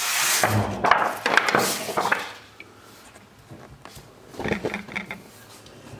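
Scraping and rubbing with a few sharp knocks, as of something being handled and moved against a hard surface: a loud spell of about two seconds at the start, then a shorter, quieter one about four and a half seconds in.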